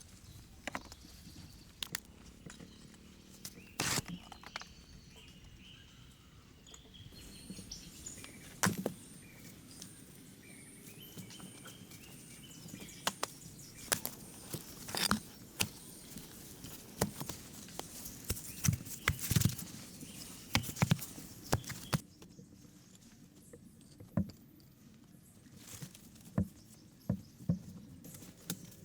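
Irregular sharp knocks and taps, coming thickest in the middle, with birds chirping faintly.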